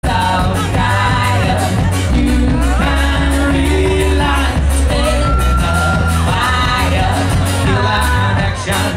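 Live folk band playing loudly: a woman singing over fiddle, guitars, bass and drums, with one long held note about halfway through.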